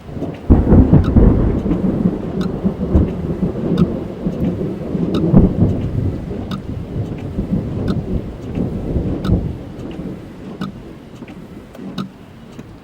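A thunderclap breaks about half a second in and rolls on in a long low rumble that swells again a couple of times and slowly dies away, heard from inside a car. Raindrops tick on the car throughout.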